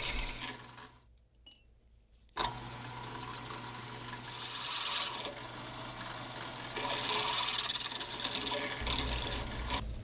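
Drill press running with a twist drill cutting into a cast-iron lathe tailstock, a steady scraping hiss over the motor's hum that swells a few times as the bit bites. It stops briefly about a second in, then starts again.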